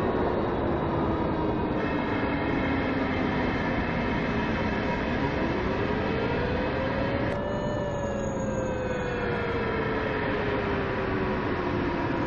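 Loud, steady, engine-like rumbling drone with a whining tone that slides down in pitch, rises to a peak a little past midway and then falls again. There is one sharp click about seven seconds in.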